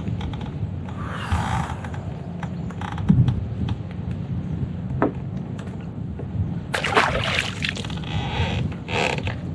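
Steady low wind rumble around a fishing kayak, with scattered knocks and scrapes of handling. A short splash comes about seven seconds in as a largemouth bass is let back into the water.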